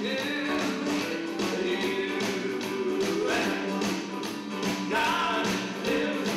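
Live band playing a song on electric bass and acoustic-electric guitar, with a steady beat and a sung line over it.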